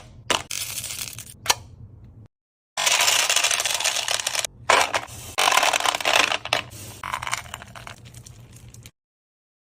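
Many small candies pouring and clattering in a dense rush of tiny hits. It stops dead about two seconds in, starts again a moment later and stops dead again near the end.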